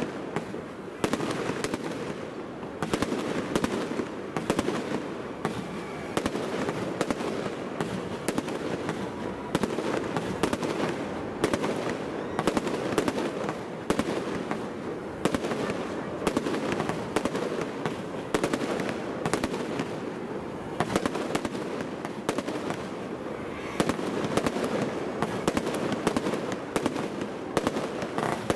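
Aerial fireworks shells bursting close overhead in rapid, irregular succession, sharp booms and cracks over a continuous rumble of echoing reports between buildings.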